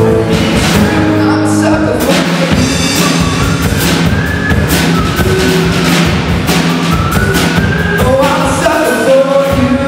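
Live band playing a song with a sung lead vocal: drum kit keeping a steady beat under guitars and an electronic keyboard.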